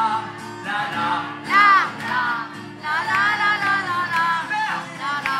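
Live amplified song: singing over acoustic guitar accompaniment, the voice gliding through held notes.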